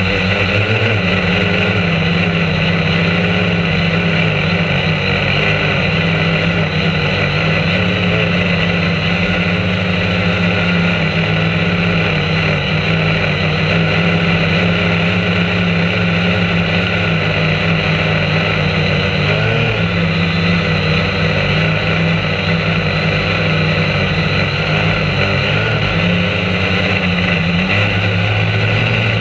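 A drone's electric motors and propellers buzzing steadily in flight, heard close up from the camera mounted under it. The pitch shifts slightly now and then as the drone manoeuvres.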